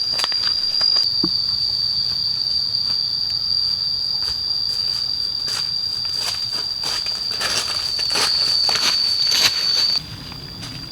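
A forest insect drones at one steady high pitch, dropping in level near the end, with footsteps and rustling through leaf litter.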